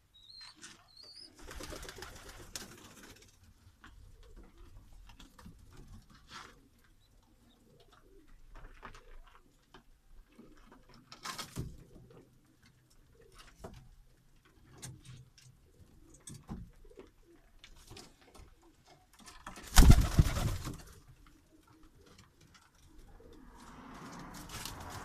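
Fancy pigeons cooing, with scattered soft rustles and knocks and one loud burst of noise about twenty seconds in.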